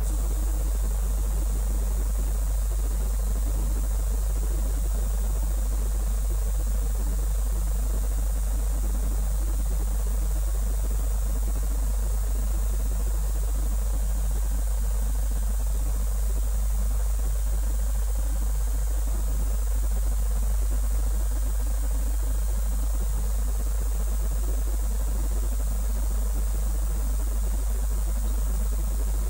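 Steady low electrical hum with an even hiss over it, unchanging throughout; no launch or machine sound rises out of it.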